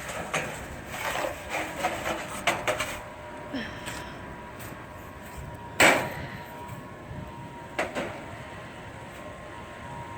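Snow and ice being knocked and scraped off a heat pump's outdoor unit: a run of short knocks and scrapes, then a single loud knock about six seconds in and a smaller one about two seconds later. A faint steady hum runs underneath.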